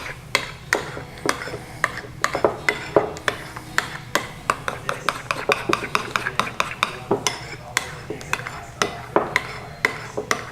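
A utensil stirring a thick mayonnaise, mustard and horseradish dipping sauce in a bowl, clinking and scraping against the bowl several times a second in an uneven rhythm.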